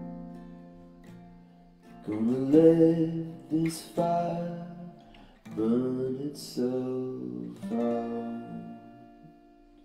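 Acoustic guitar strummed in four loud chord phrases after a quieter chord dies away. The last chord is left to ring and fade out near the end.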